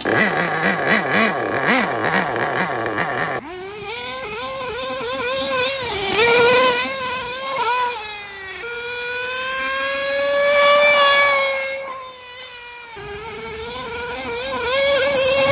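Tamiya Nitrage's FR-32FX 5.2cc nitro engine running as the truggy drives, its pitch rising and falling with the throttle. It is loud and rough for the first few seconds, then a higher, steadier tone that swells and falls off, with several abrupt jumps in the sound.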